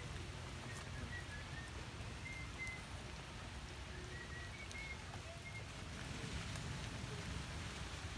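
Steady rain falling, an even hiss without breaks, with faint short high chirps now and then.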